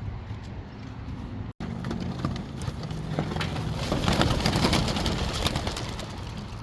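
A flock of young racing pigeons taking off from a release basket, a flurry of wingbeats that builds to its loudest about four seconds in, over a car engine idling.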